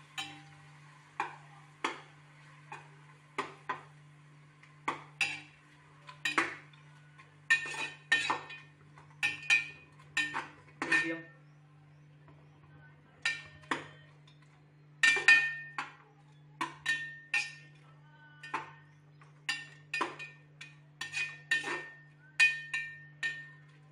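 Metal spoon stirring and scraping inside a pressure cooker pot, clinking against the metal sides a few times a second in irregular strokes. Some strokes leave a short ringing tone. There is a brief pause about halfway through.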